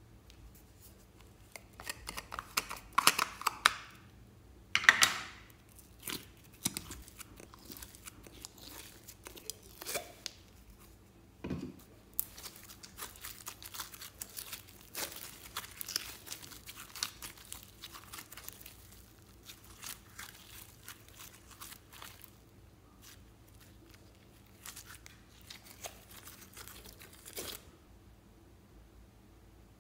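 Blue glitter slime being pulled out of a plastic container and laid in a glass bowl: sticky crackling and tearing sounds as it stretches and comes away. Two louder noisy bursts in the first few seconds come as the plastic container is handled and opened.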